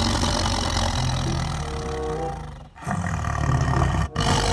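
Tiger growling in two long, deep bouts, with a short break a little past halfway.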